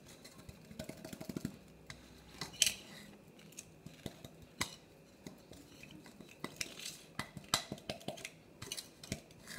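A spoon scraping and tapping against a blender cup as ice cream is scooped into it, in irregular clinks and scrapes with one sharper knock a little under three seconds in.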